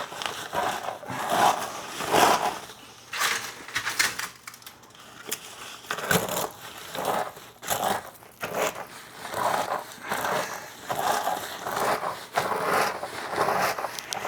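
Toasted, brittle eggshells crunching and grinding under bare knuckles as fists are rolled and pressed into a pile of them, in uneven crunches roughly once a second.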